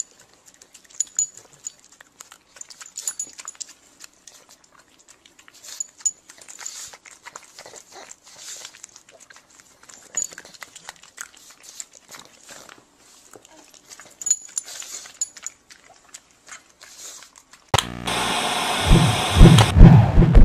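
A dog mouthing and chewing a leash with a metal clip close to the microphone: faint, scattered clicks and rustles. Near the end, loud rhythmic music comes in.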